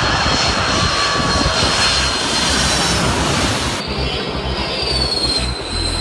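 Jet airliner engines on low landing approach, a loud steady rush with a high whine. First comes a four-engine Boeing 747, then, after an abrupt change about four seconds in, an MD-80-series twin-jet whose whine falls slightly in pitch.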